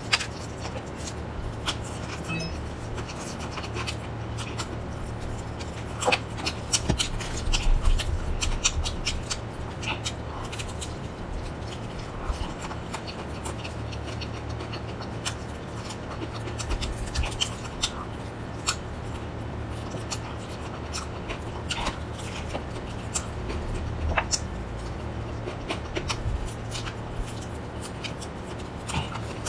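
Close-up eating sounds of crispy battered fried chicken: the crust crackles as it is torn apart by hand, and it is chewed with scattered crunches and clicks. A steady low hum runs underneath.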